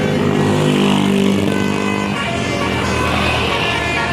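A bus's multi-tone telolet horn plays held musical notes, changing to a new set about two seconds in, over the running bus.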